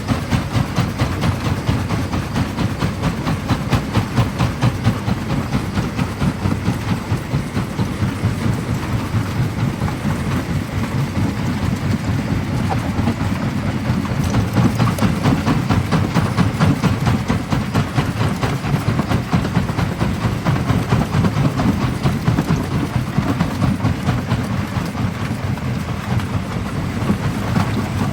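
Large primary jaw crusher running and crushing black stone: a continuous low rumble packed with rapid, irregular knocking and clatter of rock being broken between the jaws.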